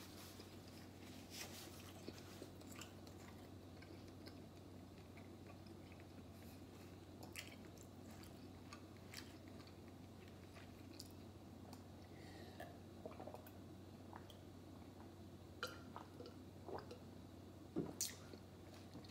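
Faint chewing and mouth sounds of a person eating, with scattered soft clicks over a low steady hum.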